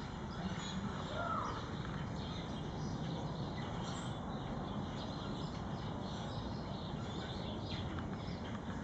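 Steady outdoor background noise with a short falling chirp about a second in and faint scattered small clicks.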